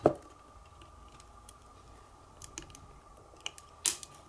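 Small sharp clicks and taps of tweezers and fingers working a tiny antenna-lead connector onto a laptop-style wifi card. There is a loud click at the very start, light ticks after it, and another strong click near the end.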